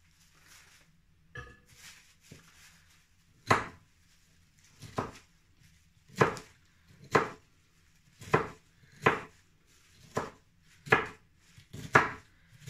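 Kitchen knife chopping through cauliflower, its blade striking the counter. About nine sharp cuts come about a second apart, starting a few seconds in after a few faint knocks.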